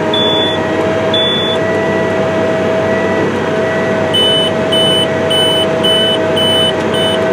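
Case IH Steiger 420 tractor's engine running steadily under load, heard from inside the cab as a constant drone with a steady hum. The cab electronics beep over it: two short high beeps near the start, then a run of about seven even beeps, about two a second, from about halfway in.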